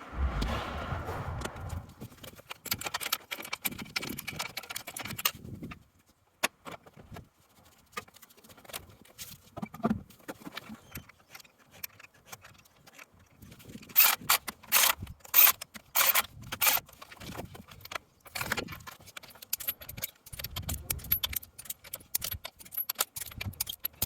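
Sped-up clinking, rattling and knocking of hand tools and metal parts being handled and put away, in irregular clatters. The loudest stretch is a quick run of sharp metallic clicks about two-thirds of the way through.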